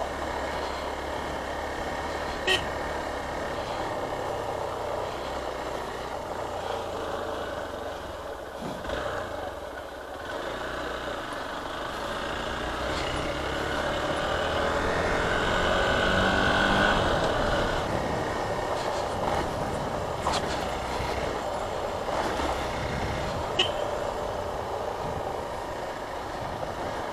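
Hero Xpulse 200 4V's single-cylinder engine running while riding along a road, mixed with steady road and wind noise. The traffic sound swells louder from about halfway through, and two short clicks come early and near the end.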